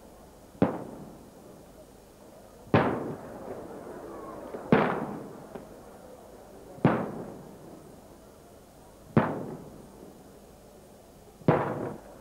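Traditional Maltese aerial firework shells bursting overhead: six sharp bangs about two seconds apart, each followed by a rolling echo that dies away.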